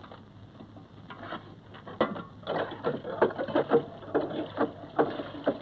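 Irregular knocks, clatter and rustling of objects being handled. Faint at first, then louder and busier from about two seconds in.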